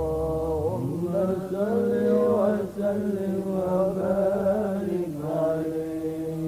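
A male Quran reciter singing one long, unbroken melismatic phrase in the tilawah style. The pitch rises after about a second and a half, holds, and falls back near the end.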